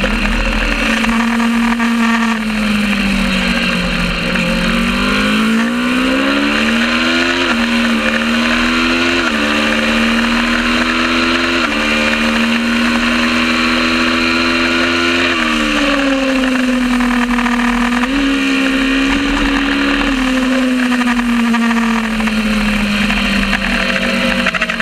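Kawasaki ER650 parallel-twin race bike engine at racing speed. Its note climbs under acceleration through quick gear changes, holds, then falls away about 15 seconds in as the bike slows, with a couple of short rises before sinking again near the end.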